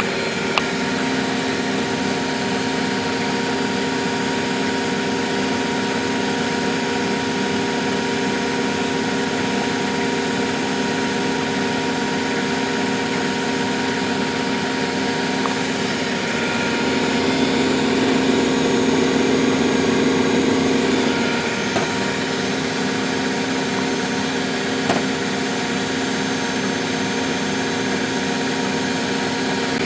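Miele Hydromatic W734 washing machine running with a steady motor hum, swelling louder for a few seconds past the middle.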